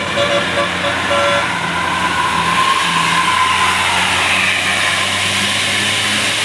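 Tour bus telolet basuri musical air horn playing a quick run of short repeated notes for about the first second and a half, then a bus passing close with a steady rush of engine and road noise.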